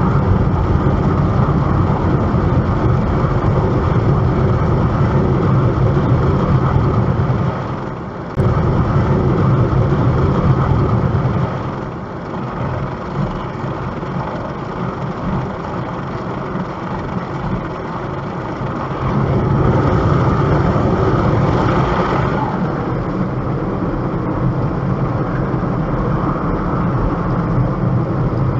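A car driving: steady engine and road noise. It dips briefly about eight seconds in, runs quieter for a stretch after that, and picks up again later.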